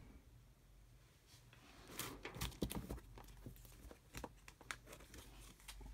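Comic books in plastic sleeves being handled and swapped on a display stand: soft crinkling with a few light clicks and knocks, starting about two seconds in and dying down near the end.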